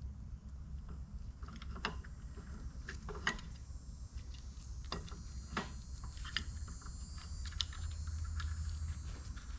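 Scattered metallic clinks and taps of hand tools on engine parts, a handful of sharp knocks spread irregularly through, over a steady low hum.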